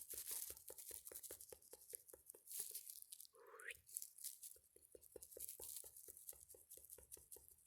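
Faint, rapid clicking of a handheld ASMR trigger, about six or seven clicks a second, with one short rising squeak about three and a half seconds in.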